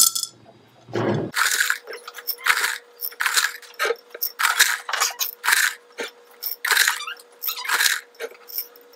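Small white pebbles being dropped by hand into a glass jar terrarium, landing on the soil and on each other in a run of short, irregular rattling clatters, about one or two a second.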